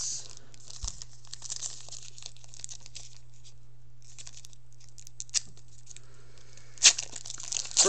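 Foil trading card pack crinkling as it is handled and torn open by hand, with a lull in the middle and a sharp, loud crinkle near the end as the wrapper is ripped. A faint steady low hum runs underneath.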